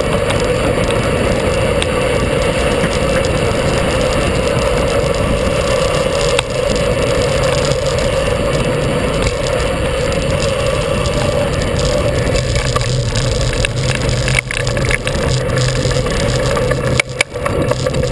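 Steady wind and road noise on a bicycle-mounted camera as the bike rolls along. A low hum joins about two-thirds of the way in, and a few knocks and rattles come near the end.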